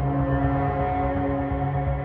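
Background music: ambient electronic track with long held notes over a pulsing low beat.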